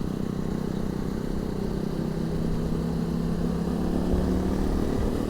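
Honda 250 Rally's single-cylinder engine running at a steady cruise, heard from inside the rider's crash helmet.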